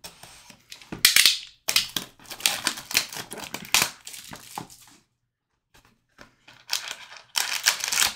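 A utility knife slits the cellophane wrap on a trading-card box, then the plastic crackles and crinkles as it is stripped off. After a short pause, a foil card pack crinkles as it is pulled out and handled.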